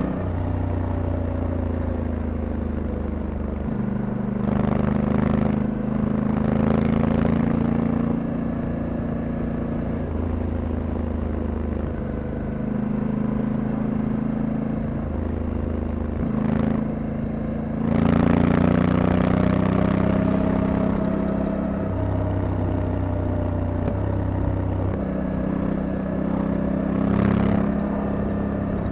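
Honda Africa Twin 1100 DCT's parallel-twin engine running through its stock exhaust while riding, the engine note rising and falling with the throttle and getting louder about two-thirds of the way through.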